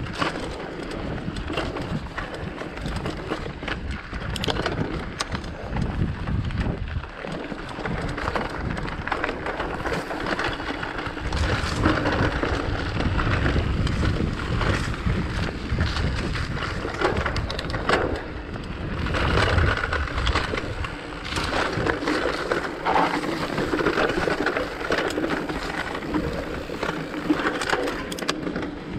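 Decathlon Rockrider mountain bike rolling over rough, rocky singletrack: tyres crunching on stones and gravel, with frequent sharp knocks and rattles from the bike. Wind rumbles on the microphone at times.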